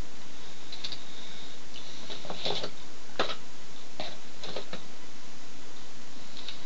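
Several light clicks and rustles of small objects being handled, spread over a few seconds, over a steady hiss.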